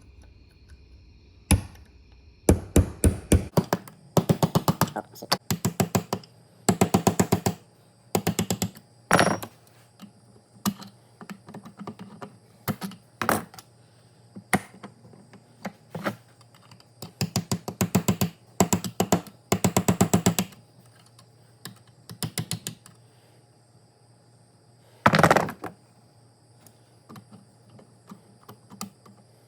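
A punch struck again and again with a hammer to tap the broken-off stub of a reverse-thread blade bolt out of a miter saw's arbor shaft. The metal taps come in quick runs of several strikes, with short pauses between the runs.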